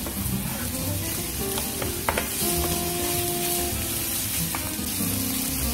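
Bacon and minced garlic sizzling steadily in a hot frying pan as they are stirred with a wooden spatula, with a couple of light knocks of the spatula about two seconds in.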